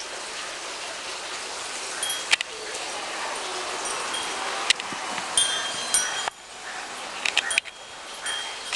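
Wind chime clinking and tinkling now and then: scattered light metallic strikes and short ringing tones over a steady rustle of wind.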